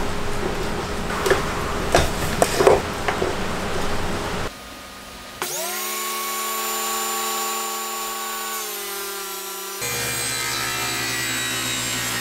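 Wood sliding and rubbing with a few sharp knocks, then, about five seconds in, a table saw motor spinning up to a steady whine that runs on, its pitch dipping slightly and its sound changing abruptly near ten seconds in.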